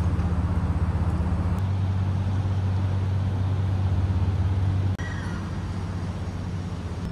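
Steady low rumble of a running motor vehicle. About five seconds in it changes abruptly to a slightly quieter rumble.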